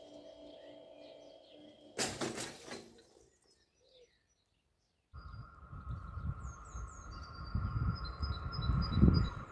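Level-crossing full barriers lowering: the drive hums with a soft pulsing tone, then the booms come to rest with a loud clatter about two seconds in; the crossing has no warning bell. After a short silence, birds chirp over a low rumble and steady whine that grow louder toward the end as a train approaches.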